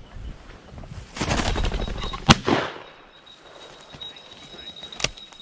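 Shotgun shots: a loud one about two seconds in, quickly followed by a second, and another about five seconds in.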